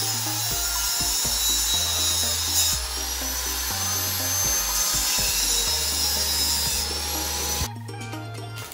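Handheld angle grinder running against a metal chain sprocket, a hissing whine that drops in pitch twice and stops about a second before the end. Background music with a steady bass line plays underneath.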